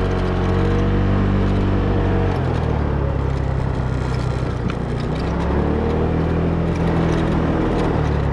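Vehicle engine running while driving, a steady low drone whose pitch shifts about two seconds in and rises again around six seconds.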